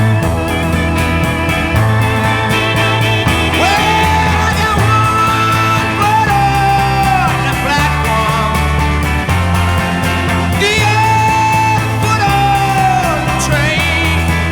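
Rock band music with no singing: an electric organ solo of long held notes that slide down at their ends, over a repeating bass line, guitar and drums.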